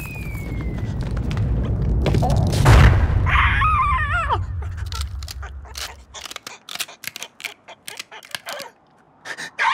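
Cartoon sound effects: a deep rumble that swells to a boom about three seconds in, then a cartoon bird's wavering, falling squawk. In the second half comes a scatter of quick clicks and taps.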